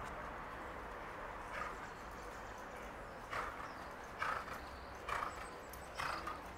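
Thoroughbred racehorse trotting on a dirt track: a beat of hoof and breath noise about once a second over a steady background hiss.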